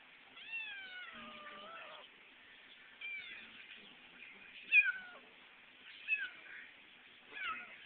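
Kitten meowing repeatedly: five high-pitched meows, the first long and drawn out, the loudest about five seconds in. The kitten has just been fed, and the owner takes the crying for a plea for contact rather than hunger.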